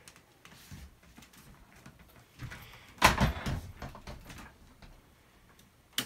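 Irregular rustling and soft knocks, with a louder scuffle of thumps and rustling about three seconds in that lasts about a second and a half.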